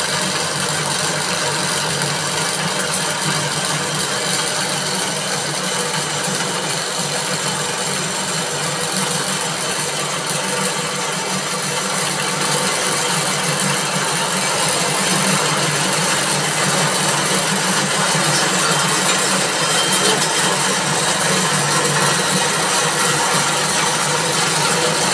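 Coconut-coir spinning machine running steadily, its belt-driven spindles and pulleys turning as coir fibre is twisted into rope and wound onto a reel; a little louder from about halfway through.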